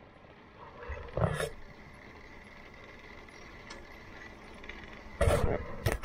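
Grimme SE 75-55 single-row potato harvester running, heard close to its sieve web. Louder bursts come about a second in and again near the end.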